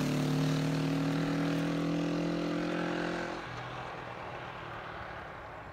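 A 1973 Honda CB450's parallel-twin engine pulling away. The note drops slightly in pitch and fades, then falls to a faint hum about three and a half seconds in.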